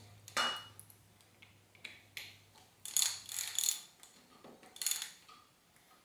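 Wrench tightening the plastic top caps of a RockShox Quadra 21R suspension fork: short bursts of metallic clicking, roughly one every second.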